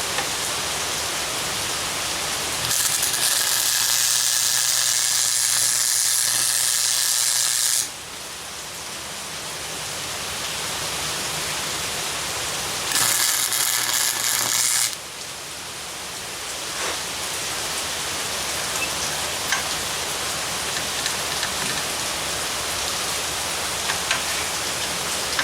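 MIG welder arcing in two runs, one of about five seconds and a shorter one of about two, with a dense crackling hiss and a low hum. It is welding a nut onto a broken exhaust manifold stud so the stud can be turned out. Between the runs there is only a steady background hiss.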